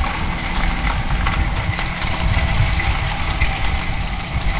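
Wind buffeting the microphone of a moving road bicycle, a steady low rumble with hiss above it.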